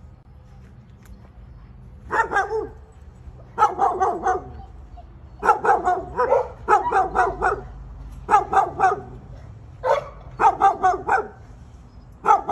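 A dog barking in rapid runs of three to five barks, again and again, starting about two seconds in.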